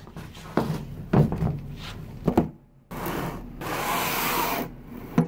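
A few heavy footsteps of rubber boots on a wooden floor, then a box sliding across a tabletop with a long scraping rub, and a knock near the end.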